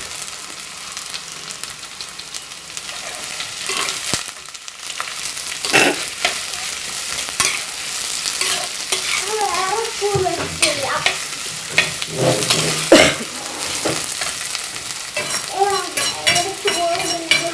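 Sliced onions sizzling as they fry in hot oil in a pan, with a spatula stirring them and clicking and scraping against the pan again and again.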